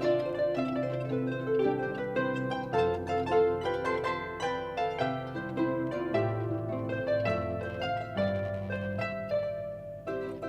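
Harp music: a plucked melody of quick notes over slower, ringing bass notes.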